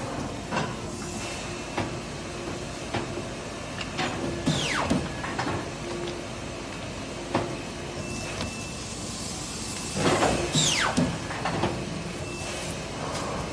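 HPM 137 paper guillotine cutter running in a factory: a steady machine hum with scattered knocks of paper and parts being handled. Twice, about four seconds in and again about ten seconds in, a short falling whoosh as the machine cycles.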